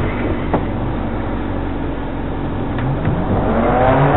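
Off-road 4x4's engine running at low speed on a rough forest trail, easing off in the middle and revving up again near the end. A few sharp knocks come from the vehicle working over the rough ground.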